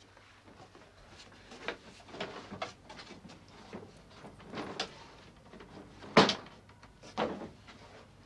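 Coats on pegs in a wooden hut being rummaged through: rustling cloth and a shiny plastic coat, with small clicks and knocks. A sharp knock comes about six seconds in and a lighter one a second later.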